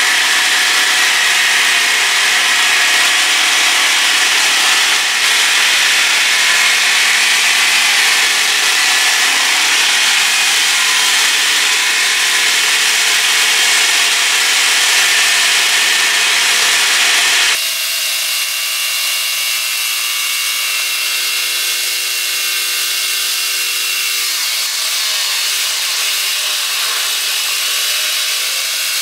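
Small four-stroke engine running hard, spinning the blade of a homemade vegetable and banana-stem cutter as greens are fed in and shredded. A little past halfway the sound switches abruptly to a lower, steadier engine note, whose pitch dips briefly a few seconds later.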